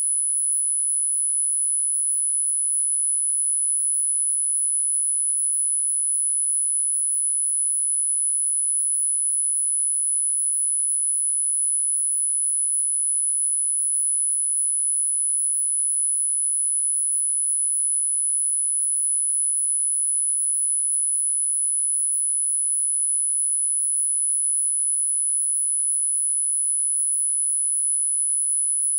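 A single steady, very high-pitched electronic sine tone, held at one unchanging pitch: a generated tone from a 'frequency' listening track.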